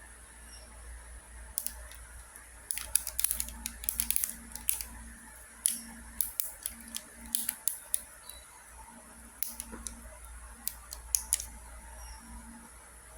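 Wacky Tracks-style fidget toy, a chain of hinged plastic links, clicking as its links are snapped and twisted into new positions. Sharp, irregular clicks come singly and in quick bunches, over a low steady hum.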